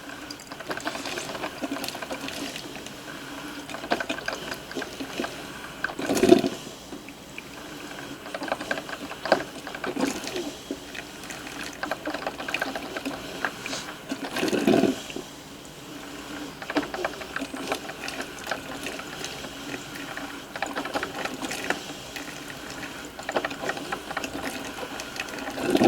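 Drip coffee maker brewing: hot water flowing through the brew basket and spitting irregularly, with two louder bursts about six and fifteen seconds in.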